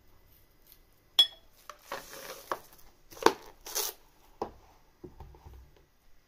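Plastic cling film pulled from its box and torn off, crinkling and rustling, with a few sharp clicks and soft knocks as the box and film are handled.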